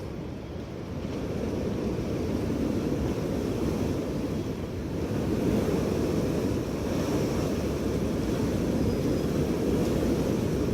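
Strong winter wind blowing in a steady low rumble, dipping slightly at the start and swelling again about a second in.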